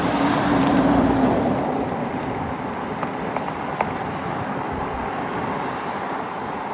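Steady road and wind noise of riding along a wet road in the rain, with a vehicle's steady hum that fades out about two seconds in.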